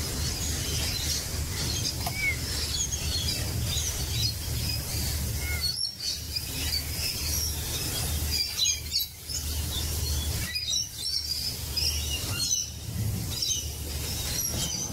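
Rainbow lorikeets and galahs chirping, with many short high calls throughout, over a steady low rumble.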